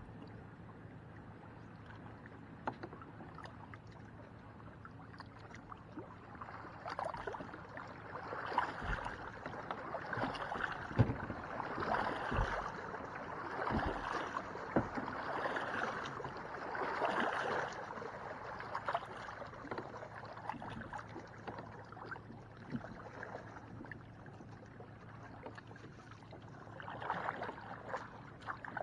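Water sloshing and swishing against a kayak as it moves, in rhythmic swells every second or two through the middle stretch, with a few dull knocks against the hull. Another run of swishes comes near the end.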